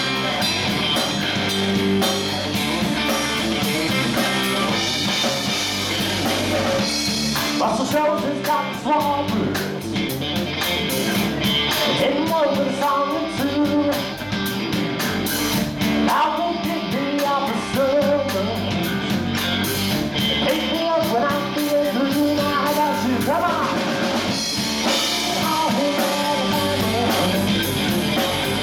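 Live rock band playing: electric guitar, bass guitar and drum kit, with a male lead vocal coming in about eight seconds in.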